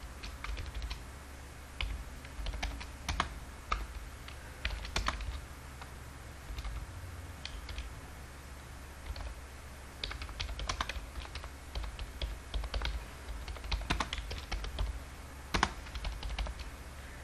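Typing on a computer keyboard: irregular keystrokes in bursts, with a sparser stretch in the middle. A low steady hum runs underneath.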